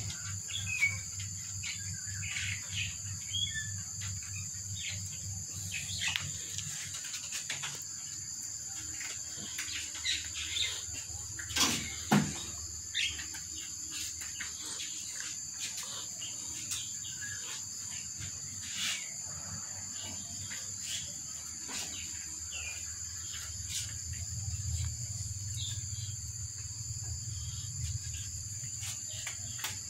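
Steady high drone of insects with scattered short bird chirps, and a pair of sharp knocks about twelve seconds in.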